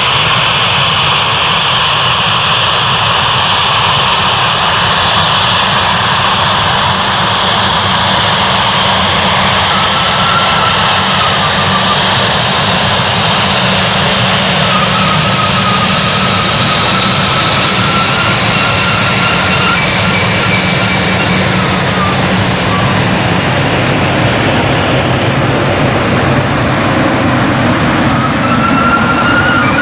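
Embraer 190 airliner's turbofan jet engines running loud and steady. A faint wavering whine comes and goes from about ten seconds in and again near the end.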